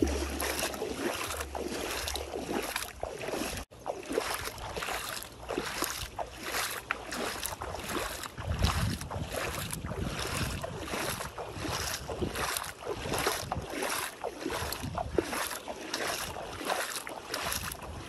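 Shallow seawater sloshing and splashing around bare feet wading over sand, in quick irregular splashes, with a brief dropout about four seconds in.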